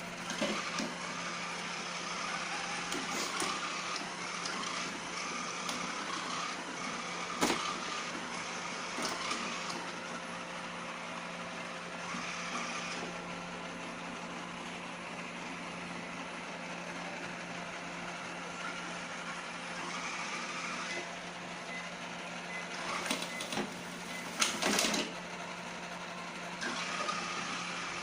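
Robot vacuum running, a steady motor hum with brush and suction noise, broken by a sharp knock about seven seconds in and a cluster of knocks and clatters near the end.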